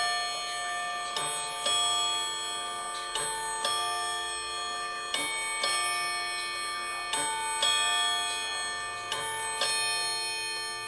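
A Canterbury regulator wall clock's quartz-driven two-gong strike sounding the hour: two hammers hit two gong rods in bim-bam pairs of differently pitched notes, a pair about every two seconds. Each note rings on into the next pair.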